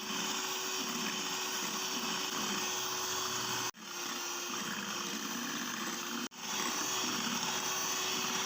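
Electric mixer running steadily, beating eggs, sugar and SP emulsifier for a sponge cake batter. The sound cuts out briefly twice.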